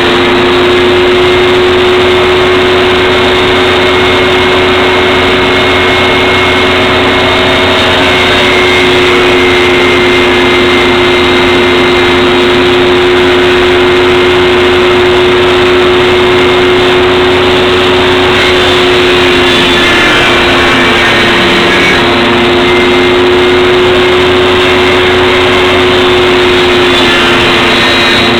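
Table saw running steadily with a constant motor and blade whine; about 20 seconds in, the pitch sags for a second or two, then comes back up.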